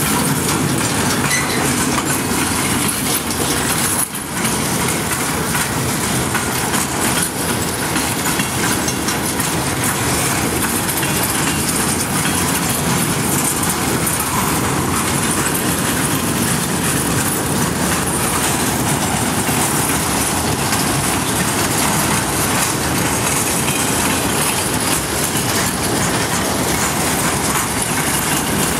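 Freight train's boxcars rolling past on steel wheels and rail: a steady, loud rush of rolling noise, with a brief dip about four seconds in.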